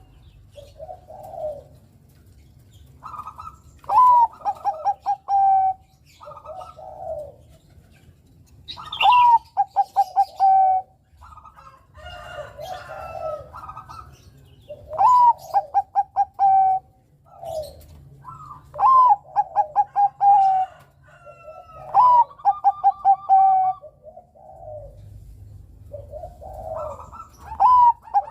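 Zebra dove (Bangkok-type perkutut) singing: about six loud phrases, each a rising-and-falling opening note followed by a rapid run of short, clipped coos. Softer coos come between the phrases.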